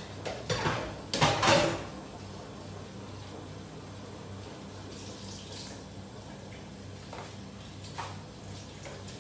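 Kitchen handling noises at the stove: two short, loud, noisy bursts in the first two seconds, then a steady low hum with a few faint knocks.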